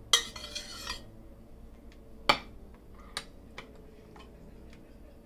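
Spoon scraping and clinking against a glass baking dish while spreading thick meat sauce over lasagna noodles: a scrape about a second long at the start, then one sharp clink a little past two seconds in and a few lighter taps.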